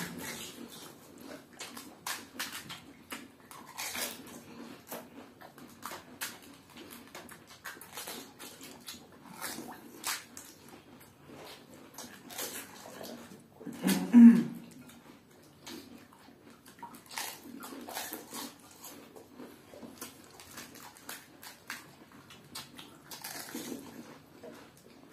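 Pani puri being eaten at racing speed: crisp shells crunching, with slurping and smacking mouth sounds in many short clicks. A louder throaty grunt comes about fourteen seconds in.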